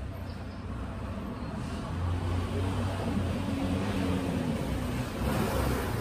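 Street traffic: a steady low rumble of passing vehicles, growing somewhat louder about two seconds in.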